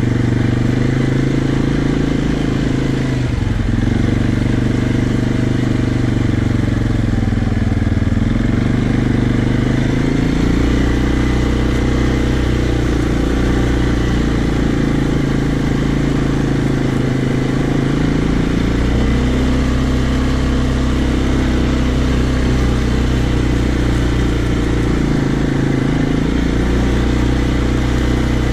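Quad (ATV) engine running in low gear as it is ridden, its speed easing up and down several times.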